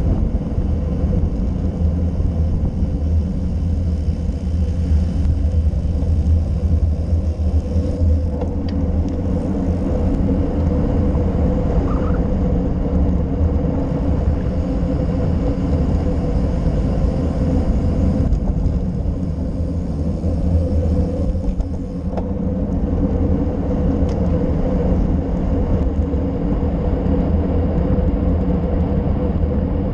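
Steady wind rumble buffeting a handlebar-mounted GoPro Session on a road bike descending at speed, mixed with road noise from the tyres on asphalt and a steady hum.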